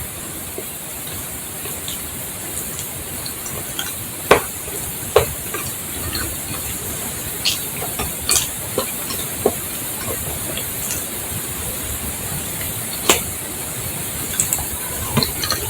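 Wet mouth clicks and smacks from eating a banana, scattered every second or two over a steady hiss.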